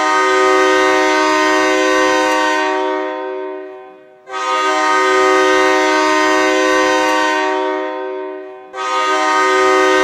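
Hockey goal horn blowing a chord of several steady tones in three long blasts. The first two trail off before the next one starts.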